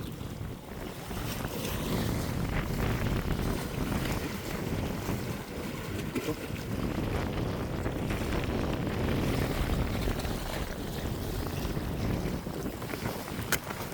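Strong gusting wind buffeting the microphone, with sea noise beneath it; a single sharp click near the end.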